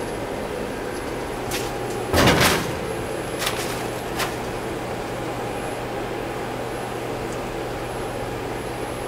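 Okuma GA26T grinder's sliding guard door being shut: one loud sliding bang about two seconds in, with a few lighter clicks around it, over the steady hum of the running machine.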